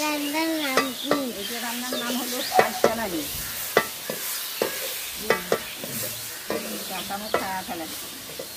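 Water spinach being stir-fried in a large metal karahi. A wooden-handled spatula scrapes and knocks against the pan many times at an uneven pace over a steady sizzle.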